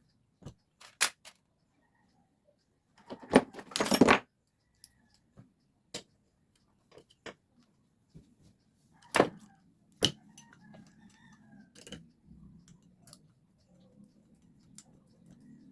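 Small metal parts and tools clinking and tapping as they are handled on a workbench. There is a string of separate sharp clicks, with a dense clatter about three to four seconds in.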